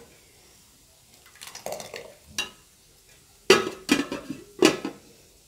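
Metal spoon and ladle clinking against a ceramic soup tureen and bowl: a few light knocks, then three sharp clinks in the second half.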